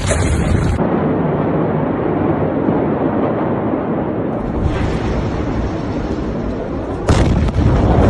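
Continuous rumbling roar of the Beirut port explosion, with a sudden, louder blast about seven seconds in. It is the detonation of the ammonium nitrate stored at the port.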